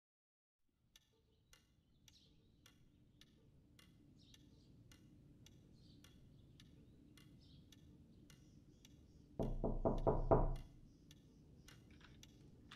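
A clock ticking steadily and faintly. Near the end comes a quick run of loud knocks on a front door.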